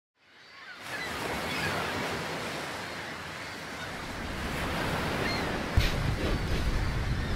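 Ocean surf washing on a beach, a steady rushing noise that fades in from silence and slowly swells. A single knock comes about six seconds in, followed by low wind rumble on the microphone.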